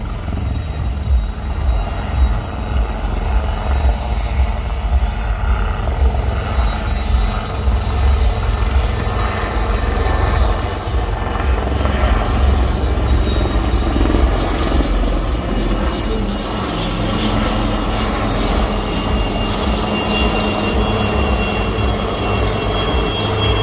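Three turboshaft helicopters, an Alouette III and two HAL Dhruvs, flying past overhead in formation. A steady, pulsing rotor thud runs underneath, and a high turbine whine comes in more clearly over the second half.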